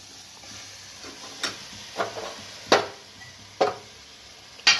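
A steel ladle stirring curry in a steel kadhai, knocking against the pan five times, with the loudest knock near the end, over a faint steady hiss from the cooking gravy.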